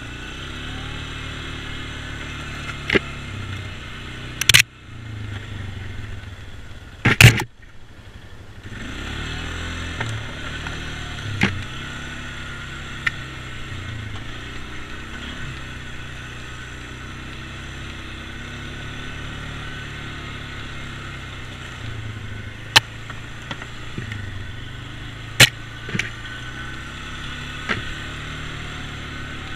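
ATV engine running at low trail speed, its pitch rising and falling with the throttle and easing off briefly a few times. Sharp knocks break in now and then, the loudest about seven seconds in.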